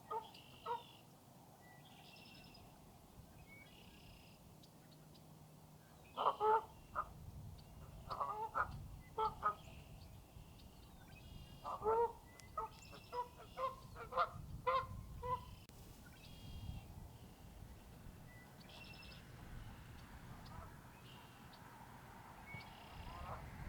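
Geese honking in short repeated calls, in clusters a few seconds apart and with a quick run of honks in the middle, while small birds chirp faintly in the background.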